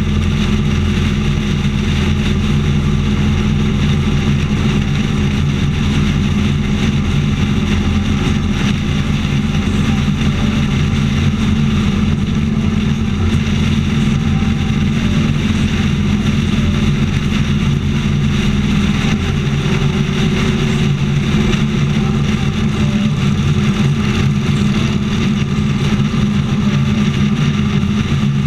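Motorcycle engine running steadily at highway cruising speed, heard from the bike itself, over a constant rush of road and wind noise.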